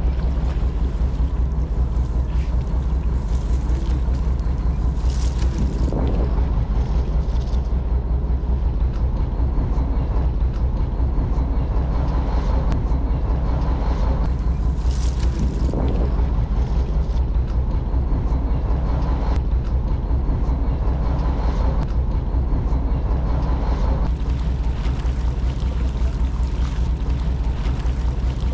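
Fishing boat's engine running steadily with a low, even drone, with wind on the microphone.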